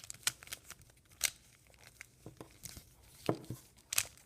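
A 3x3 Rubik's cube's plastic layers being twisted through a move sequence: an irregular string of sharp clicks and clacks with short pauses, a few louder snaps among them.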